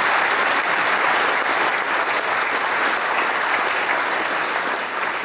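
Large audience applauding, many hands clapping in a dense, steady patter that eases off slowly near the end.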